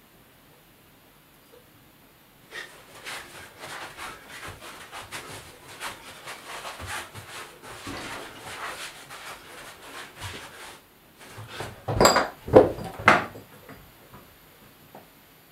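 Scuffing, rubbing and small knocks of a dancer's moving feet and body, then three loud knocks close together.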